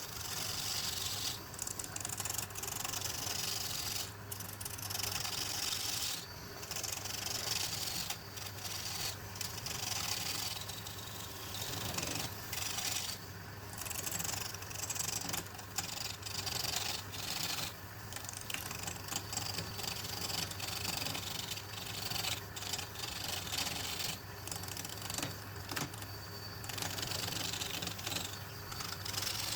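Wood lathe running with a steady low hum while something scrapes against the spinning wood, in passes of a few seconds broken by brief pauses.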